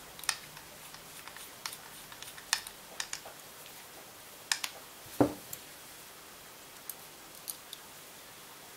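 Scattered small metallic clicks and taps of handling and hand-tightening the two nuts on the end of a Biax scraper's housing, with one duller, louder knock about five seconds in.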